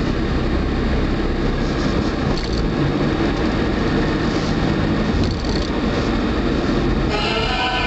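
Steady road and engine noise of a moving car, heard from inside the cabin. Background music comes in near the end.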